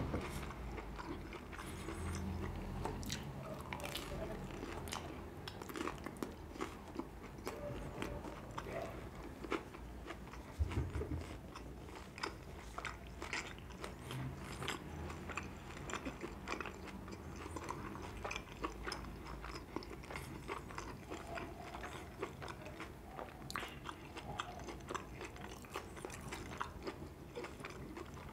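Close-miked biting and chewing of a bread roll with sausage: many quick, irregular wet mouth clicks and smacks. There is a louder low thud about ten seconds in.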